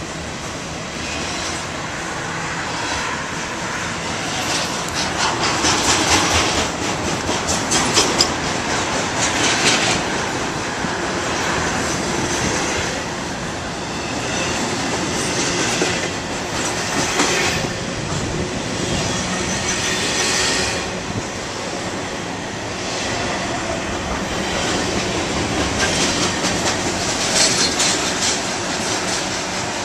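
Norfolk Southern intermodal freight train rolling slowly past below, its steel wheels clattering over the rail joints in a steady rumble, with louder stretches of high-pitched rattling and screeching every few seconds.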